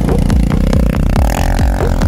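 Background music with a fast, steady beat, with a quad's engine running beneath it.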